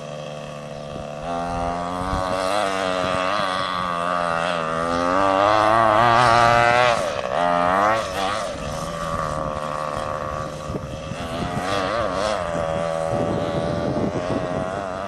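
Small nitro glow-fuel engine of an RC truck revving up and down as it drives, its high buzzing pitch climbing and dropping again and again, loudest and highest about halfway through before easing back.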